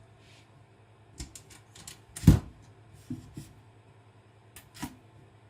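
A scattering of light clicks and taps with one louder knock a little over two seconds in, as a knife and sharpening gear are handled on a work surface.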